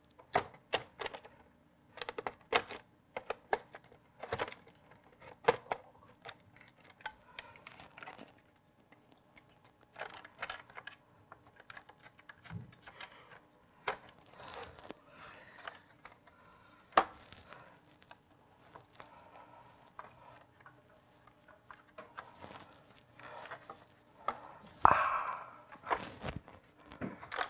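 Hands working over a metal rifle scope at a workbench, rubbing a weathering finish onto it: scattered small clicks and taps with short crinkling rustles, the loudest a rustle near the end.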